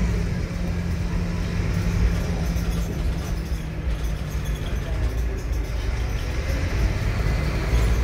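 Interior of a moving ADL Enviro 300 single-deck bus: its Scania diesel engine runs under way with a steady low note, which gives way to a plainer road-and-engine rumble about three seconds in.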